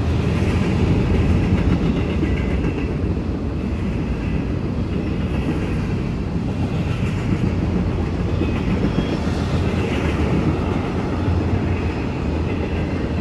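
Freight cars of a CSX mixed freight train rolling past: a steady rumble of steel wheels on the rails with some clickety-clack.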